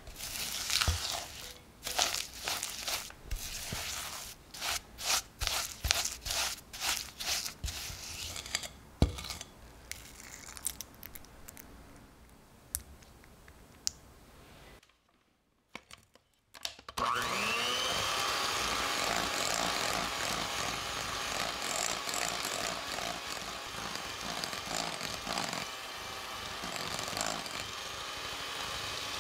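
A silicone spatula scraping and pushing a crumbly creamed cookie mixture around a glass bowl in short, irregular strokes. After a brief pause about halfway through, an electric hand mixer starts up with a rising whine and then runs steadily, its beaters working egg into the creamed dough.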